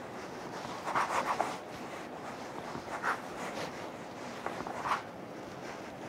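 Kitchen knife cutting through a block of dough, three short scraping strokes spaced about two seconds apart.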